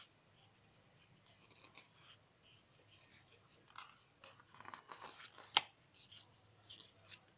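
Pages of a hardcover artbook being turned by hand: faint paper rustles, then a flurry of page handling about four to five and a half seconds in that ends in one sharp snap as a page flips over.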